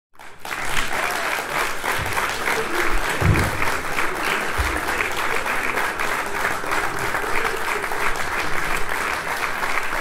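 A large audience applauding: dense, steady clapping that starts abruptly, with a few faint voices in the crowd.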